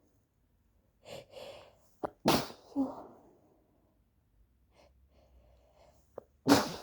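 A woman sneezing twice into a handkerchief, each sneeze a sudden loud burst. The first comes about two seconds in, after two quick catching in-breaths, and the second comes at the very end.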